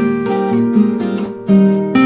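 Background music on acoustic guitar, plucked and strummed notes moving along in a steady melody.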